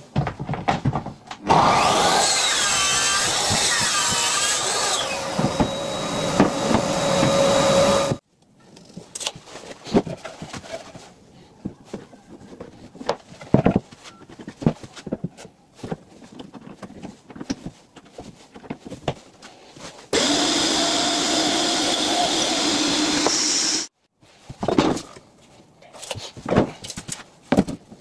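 Circular saw running along a guide rail through a sheet of veneered MDF for about six seconds, its motor pitch dipping and rising under load. Then a stretch of scattered clicks and knocks from handling, and a second power tool running steadily for about four seconds before more knocks.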